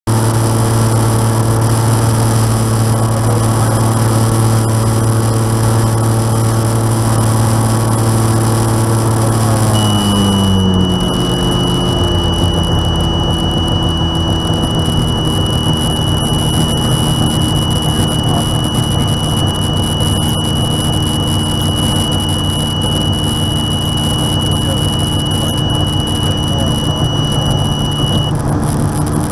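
Light aircraft piston engine, after replacement of its fuel-injection spider, running steadily. About ten seconds in it is throttled back and its pitch slides down to a lower idle, which is the idle noise under investigation. As the power comes off, a steady high-pitched warning horn starts and sounds until near the end.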